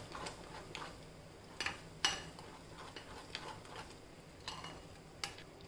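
A spoon stirring and beating thick semolina batter in a glass bowl, with faint, irregular clinks and taps of the spoon against the bowl's side.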